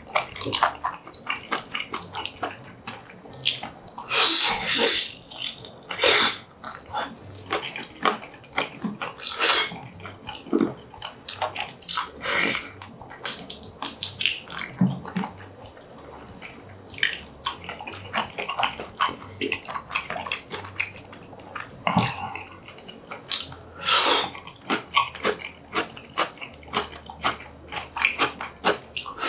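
Close-miked wet chewing and lip-smacking of a person eating spicy braised pig's feet (bul jokbal), an irregular run of sharp, sticky smacks with louder bursts about four seconds in, near ten seconds and about twenty-four seconds in.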